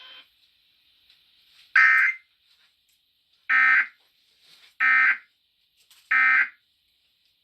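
Emergency Alert System end-of-message signal: four short, harsh digital data bursts about a second and a quarter apart, the coded tones that close an EAS test broadcast.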